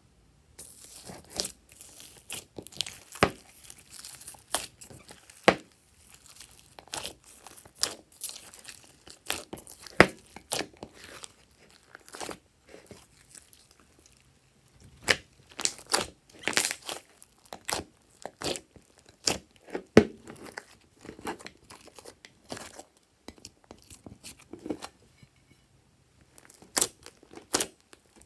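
Glossy slime being squished and kneaded by hand: irregular sticky clicks and crackling pops in clusters, with short pauses between.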